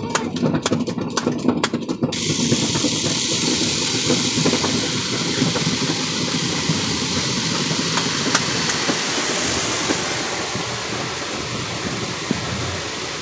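Car-wash cloth brushes slapping and scrubbing against the car for about two seconds. Then a steady hiss of water spraying onto the car, heard from inside the cabin, easing slightly near the end.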